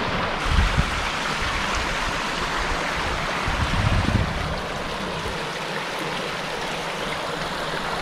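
Shallow stream running over stones, a steady rushing trickle, with a couple of low rumbles about a second in and again about four seconds in.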